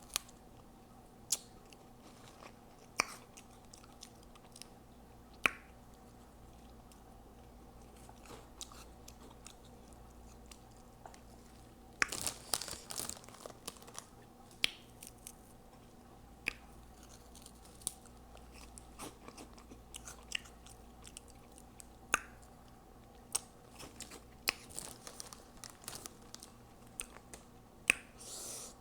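Close-miked mouth sounds of someone chewing Hot Cheeto puffs: sharp crunches and smacks spaced a second or two apart, with a denser run of crunching about twelve seconds in.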